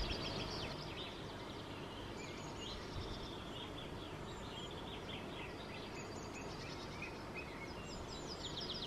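Songbirds singing in quick chirping and trilling phrases, several times with short pauses between, over a steady outdoor background hiss.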